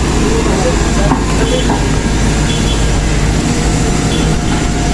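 Hydraulic excavator's diesel engine running steadily under load as it lifts a bucket of earth out of a trench. A faint steady whine joins in near the end.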